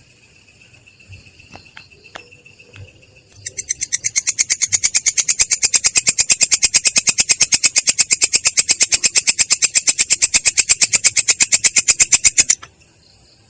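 An insect stridulating: a loud, even train of short dry pulses, about nine a second, starting about three seconds in and stopping suddenly near the end. Before it, a faint high steady note with a few soft clicks.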